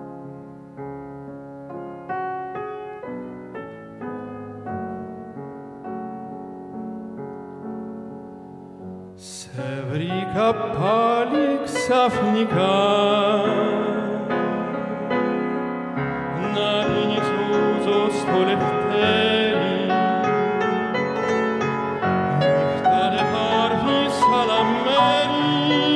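Grand piano playing a quiet introduction alone. About nine seconds in, a male tenor voice comes in louder, singing with vibrato over the piano accompaniment.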